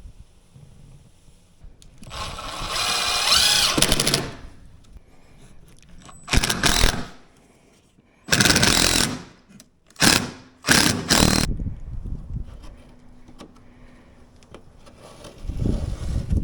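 A handheld power tool is run in five short bursts, the first about two seconds long, the later ones each under a second. A steadier noise rises near the end.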